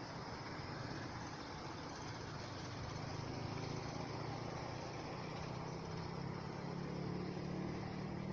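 Steady low motor hum over a haze of background noise.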